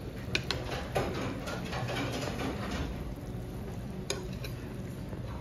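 Soup still sizzling and bubbling in a hot earthenware pot (ttukbaegi) just off the heat, a steady crackling hiss with a few sharper pops.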